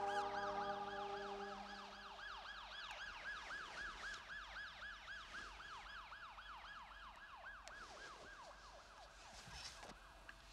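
A repeating warble: quick rising-and-falling glides of a high tone, about three a second, slowly fading away. A held musical chord dies out in the first two seconds.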